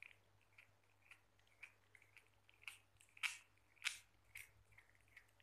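Young kitten chewing and biting raw meat: faint, irregular wet clicks and small crunches, with a few sharper ones past the middle.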